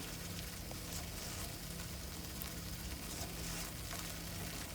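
Tomato and cashew puree cooking in ghee, sizzling gently and steadily in a pan, over a faint steady low hum.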